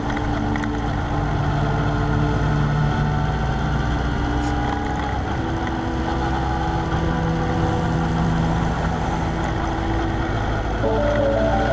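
Steady engine and road noise from a vehicle driving along a street, recorded by a GoPro mounted on it.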